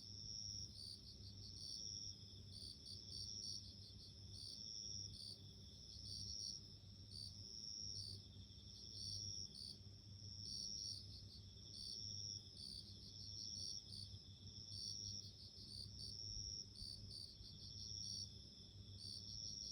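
Japanese bell crickets (suzumushi) singing in chorus: a steady high ringing with short chirps repeating over it, and a faint low hum underneath.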